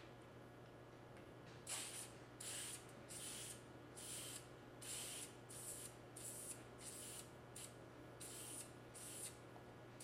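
Preval aerosol sprayer hissing out DuraCoat firearm finish in about a dozen short, quick bursts, starting about two seconds in. They are light misting passes of the accent colour, applied just enough to hide the coat below.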